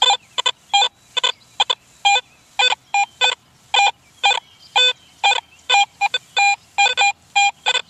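Garrett AT Pro metal detector giving short, rapid beeps, about three a second, as its coil is swept back and forth over a target. The signal is erratic and scratchy, jumping all over the place, from a corroded zinc penny only about an inch deep.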